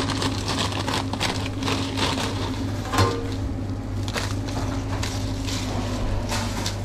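A foil Doritos bag crinkling as it is opened and emptied, and tortilla chips crackling and crunching as they are crushed by hand in plastic gloves. There is a sharper crack about three seconds in, all over a steady low hum.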